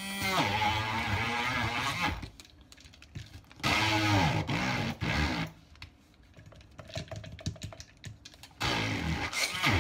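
Stick blender grinding roasted peanuts in a plastic beaker, run in three short pulses of about two seconds each, its motor pitch rising and falling with each pulse and the nuts clattering against the blade and beaker.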